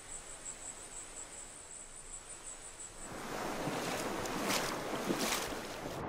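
Forest insects trilling in a fast, high pulsing chirp, cut off about halfway by the louder rush of stream water, with two splashes in the water near the end.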